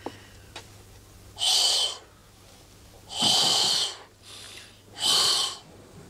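Three short hissing rushes of breath, each about half a second and about two seconds apart, as a man blows hard into a balloon lung tester, with fainter breaths between them.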